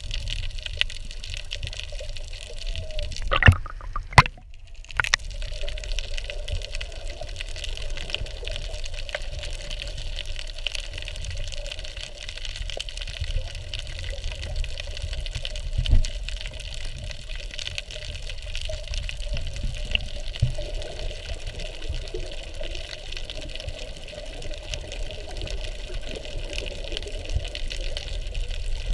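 Underwater ambience: a steady, muffled wash of water with a low rumble. A few sharp clicks and a brief dropout come about four seconds in.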